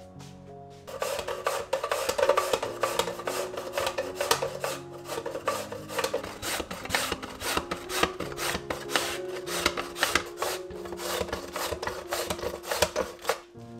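A carrot being julienned on a handheld plastic julienne slicer: repeated rasping strokes, about three a second, starting about a second in and stopping just before the end.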